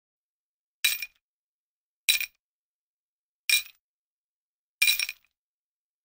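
Four short, bright clink sound effects, one about every 1.3 seconds, each with a brief high ring that dies away quickly.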